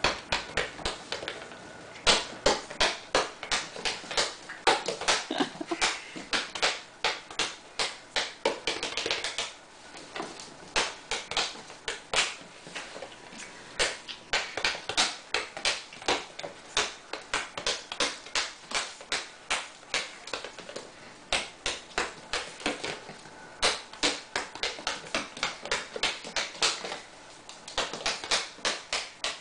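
A small ball dribbled by hand on a hardwood floor, with a Shih Tzu puppy scrambling after it. The result is rapid, irregular tapping, several knocks a second, which eases briefly about ten seconds in and again near the end.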